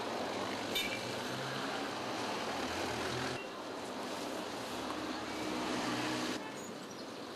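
Street traffic noise with a motor vehicle engine running. The sound changes abruptly twice, at about three and a half seconds and at about six and a half seconds.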